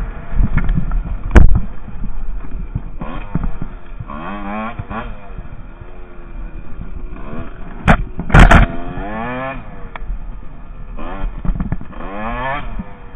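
Husqvarna WR 150 two-stroke dirt bike engine revving up and down while riding, its pitch rising and falling with the throttle. A few sharp knocks cut in, the loudest about a second and a half in and again past the middle.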